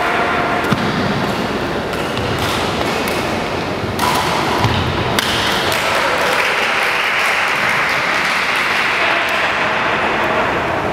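Badminton rally: rackets strike the shuttlecock with a few sharp pings, several seconds apart, over the steady background noise of a large sports hall.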